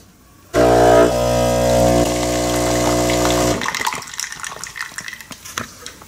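Philips 1200 espresso machine's pump running with a steady hum for about three seconds as it pushes water through the ground coffee for a single espresso, then cutting off. Quieter trickling and dripping into the cup follow.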